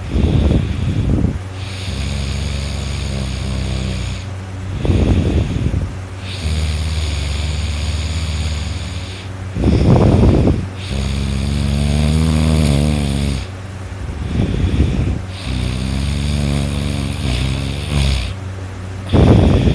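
A sleeping person snoring loudly. Harsh, rattling snores on each breath come about every five seconds, with pitched, droning breaths between some of them. A steady low hum runs underneath.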